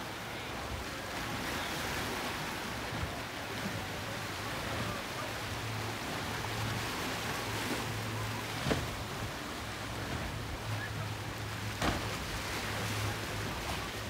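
Choppy inlet water and wind noise, with the steady low drone of a center-console boat's engines as it runs through the waves. Two sharp knocks, about nine and twelve seconds in.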